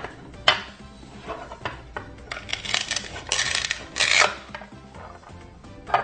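Toy knife and plastic toy fruit clicking and clacking on a toy cutting board, then a few short raspy tearing sounds as the velcro-joined halves of a toy pear are cut apart. Soft background music underneath.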